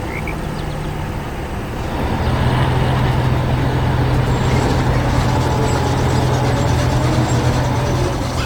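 Heavy truck engine running steadily, a low rumble that grows louder about two seconds in and then holds.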